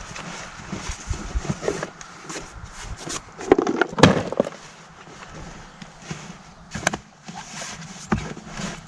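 Irregular wooden knocks and clatter of sticks and firewood being handled, with the loudest knocks about four seconds in.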